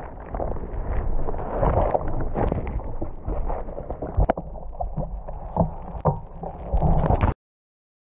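Muffled rush and splashing of breaking surf over the camera, with scattered sharp knocks. It cuts off abruptly about seven seconds in.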